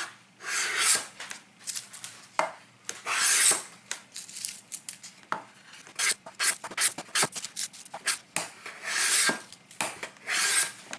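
Tactix block plane being pushed across a pine board in several planing strokes, each a short scraping hiss as the freshly sharpened blade takes a thin shaving, with a run of short clicks and taps in between.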